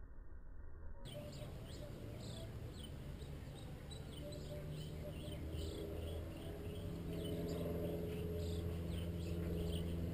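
A cat growling low and steadily over its prey, getting louder in the second half, with rapid high-pitched chirping going on throughout.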